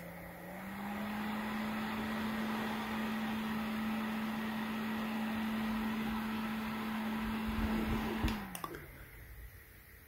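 Small brushless-motor metal desk fan blowing: a click, then about half a second in its motor hum steps up in pitch to a higher speed and runs steadily with air rushing. Near the end come clicks and the hum falls in pitch as the fan is switched off and spins down.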